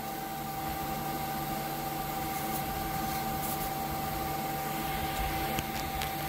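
Qidi Tech Shadow 5.5S resin printer's Z-axis stepper motor driving the build plate slowly down its lead screw: a steady whine over a low hum.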